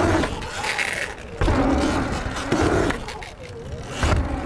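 Surron Light Bee electric dirt bike riding over wooden jump ramps: a motor whine that dips and rises in pitch, tyre noise on the ramps, and three heavy thuds as the wheels strike and land, the loudest near the end.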